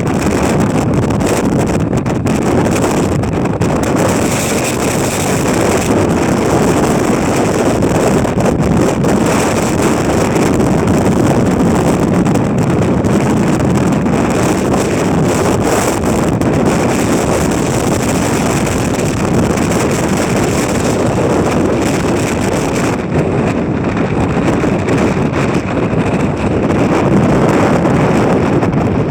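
Strong gale blowing hard over the microphone in a loud, steady rush of wind noise.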